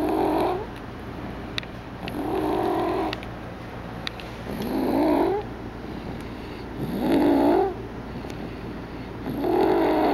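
Snoring in a slow, even rhythm: five snores, each under a second long, about every two and a half seconds.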